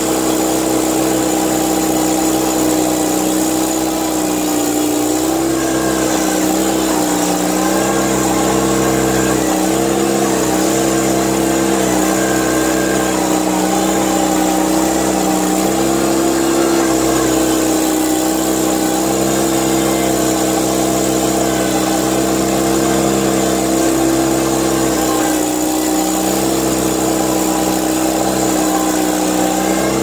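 Mustang 310 skid steer's engine running steadily at working speed, its pitch dipping and recovering a few times as it pushes snow with the loader.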